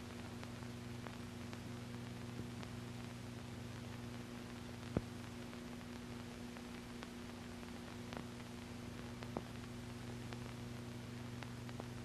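Steady low electrical hum over faint hiss, with scattered clicks and crackles; the loudest click comes about five seconds in. This is the background noise of an old film soundtrack between lines of narration.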